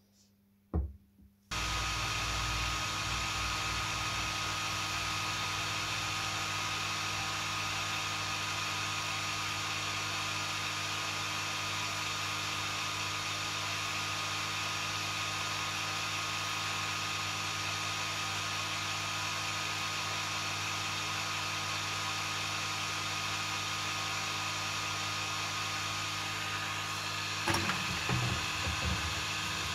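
Heat gun blowing steadily, a fan motor with an even hum and rush of air, switched on about a second and a half in after a short knock. It is heating the score line on a glass bottle so that thermal shock will crack it there. Near the end, splashing and ice knocking as the hot bottle is plunged into ice water.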